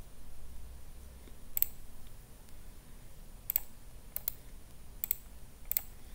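Computer mouse clicking: five sharp single clicks at uneven intervals over a faint low hum.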